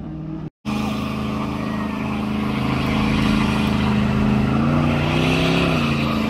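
Car engine running at a steady idle, then briefly rising in pitch a little under five seconds in, as from a light rev, before settling back.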